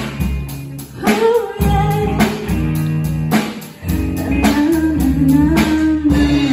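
Live soul-style rock band: a female singer sings long held notes over electric guitar, bass guitar, keyboard and a drum kit, with a slow, steady drum beat about once a second.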